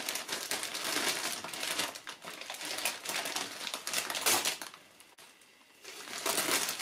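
Christmas gift-wrapping paper crinkling and rustling in quick crackles as a soft parcel is torn open by hand, with a pause of about a second near the end.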